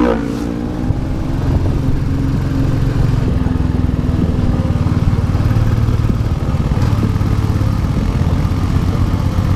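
Royal Enfield Classic 350's single-cylinder engine running steadily while riding, with its low, rapid exhaust thump. It is briefly quieter just after the start, then pulls evenly.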